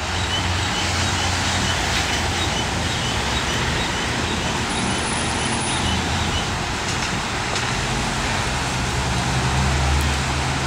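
Steady traffic noise with a low engine rumble and tyre hiss on a wet road. A faint high chirp repeats about three times a second for the first few seconds.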